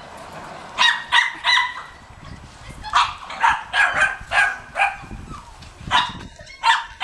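A dog barking repeatedly with short, fairly high-pitched barks, in three bursts: about three barks near the first second, a run of six around the middle, and three more near the end.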